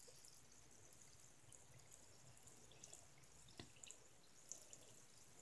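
Near silence, with faint scattered drips and small splashes of water as a hand moves through water in a sink.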